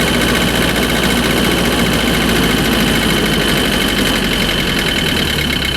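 MEP-803A generator's diesel engine running steadily on the fuel left in its lines after its electric fuel pump is unplugged, its low hum weakening slightly near the end as it starves and begins to die. The engine will only stop this way because the fuel shut-off solenoid is not cutting the fuel, which the owner takes for a faulty solenoid.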